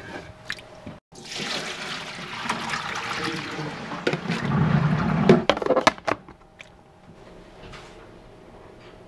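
Water running and splashing into a container for about five seconds, growing heavier just before it stops, with a few sharp knocks and clanks around it.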